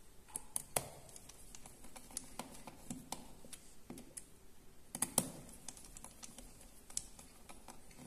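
Irregular small clicks and taps of fingers handling the plastic connector and wire leads at a washing machine motor's terminal block. The two sharpest clicks come about a second in and about five seconds in.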